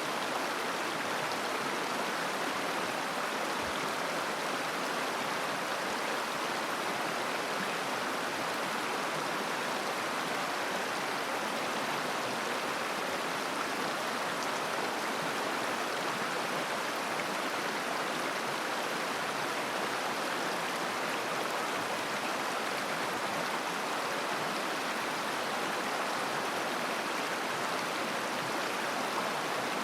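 A mountain river flowing and babbling, a steady rushing of water with no change.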